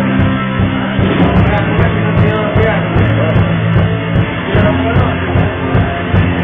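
Live rock band playing a song: electric guitar and bass over a steady drum beat.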